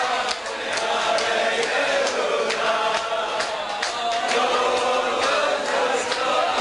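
A group of men singing together, many voices in unison, with sharp claps about twice a second.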